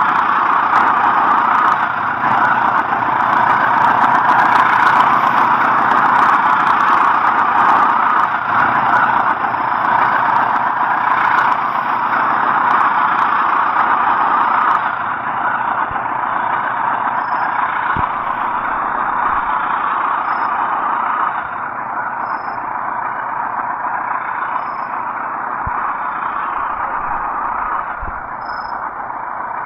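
Pangrango passenger train running past on the rails: a steady rush of wheel and rail noise, loudest in the first few seconds and slowly fading, with a few sharp knocks in the second half.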